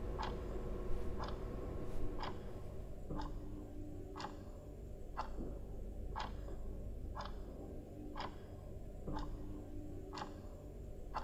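Steady clock-like ticking, one sharp tick about every second, over a faint low hum.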